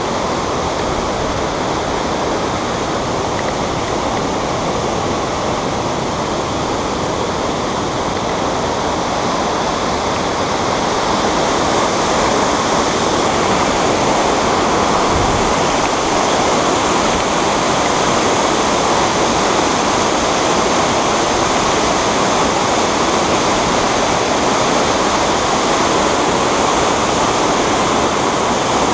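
Steady rushing of a waterfall pouring into its plunge pool, growing a little louder about eleven seconds in.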